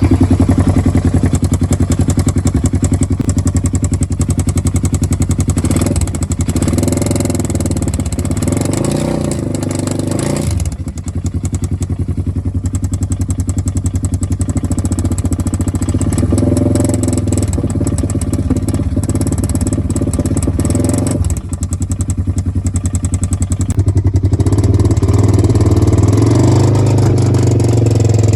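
2014 Polaris RZR 900S side-by-side's twin-cylinder engine running on a ride, engine speed rising and falling and briefly dropping off about ten seconds in and again about twenty-one seconds in. The engine makes a sound the owner suspects may be rod knock.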